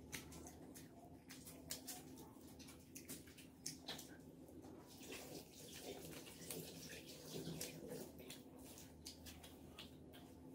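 Fingers mixing rice and curry on a plate by hand: faint wet squishing with many small clicks, over a low steady hum.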